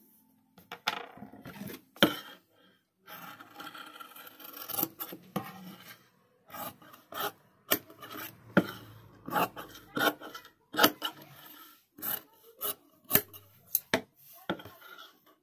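Large tailor's scissors cutting shirt fabric around a curve, starting about a second in: a run of sharp, irregular snips, each with the rasp of the blades shearing through cloth.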